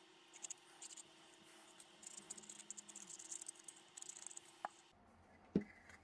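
Faint scratchy rubbing of a glue stick being applied to a cardboard tube, with light handling of the tube. A sharp click comes near the end, then a knock.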